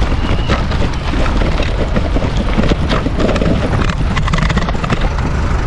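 Bicycle jolting over a rough, rubble-strewn dirt road: a dense, continuous clatter of knocks and rattles over a steady rumble of wind on the microphone.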